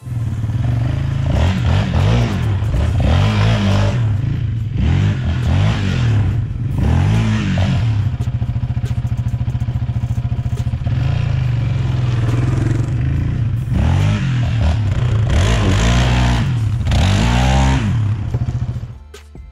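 Yamaha Raptor 700 ATV's single-cylinder four-stroke engine revving up and down repeatedly while being ridden, with a steadier stretch midway; it cuts off abruptly near the end.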